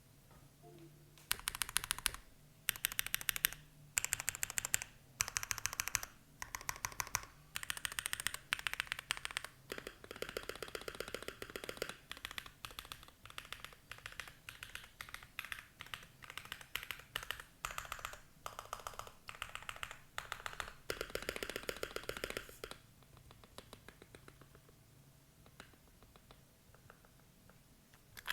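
Keychron Q1 mechanical keyboard with lubed Durock POM linear switches and GMK Olivia cherry-profile keycaps, typed on in fast bursts of keystrokes with short pauses between. Near the end the typing thins out to a few scattered keystrokes.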